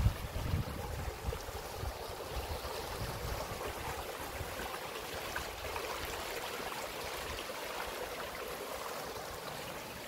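Shallow rocky mountain stream babbling steadily as water spills over and between stones.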